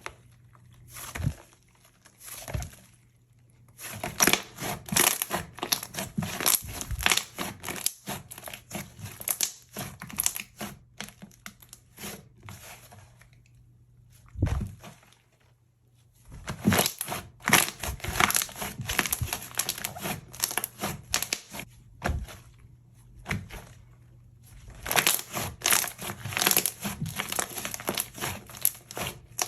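Clay slime being mixed and pressed by hand, giving dense runs of small sizzly crackling pops in three long bouts with short pauses between. The crackle comes from clay, dried out from sitting in a cracked container, being worked into soft slime.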